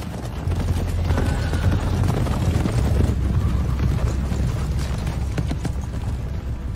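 Hoofbeats of a large mass of cavalry horses advancing together, many overlapping hoof strikes blending into a dense low rumble that swells about half a second in.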